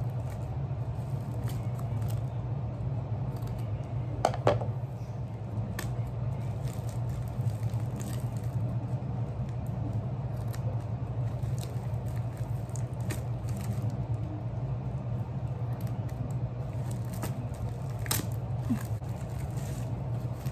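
Scissors snipping through a plastic mailer bag, with the plastic crinkling and scattered sharp clicks, the clearest about four seconds in and again near the end, over a steady low hum.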